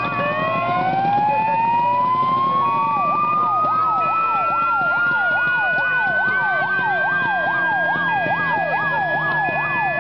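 Several fire engine sirens sounding at once: one wail rises slowly and steadily in pitch across several seconds, and about three seconds in another starts sweeping rapidly up and down, about three times a second.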